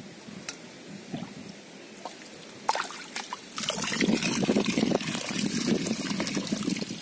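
Shallow muddy water trickling and splashing as hands work in it and scoop into a steel bowl: a few small splashes at first, then louder, busier sloshing from about three and a half seconds in.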